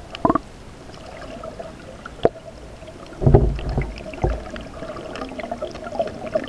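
Muffled underwater knocks and thumps heard through an action camera's waterproof housing, over a faint steady hum. The loudest cluster of thumps comes about three seconds in.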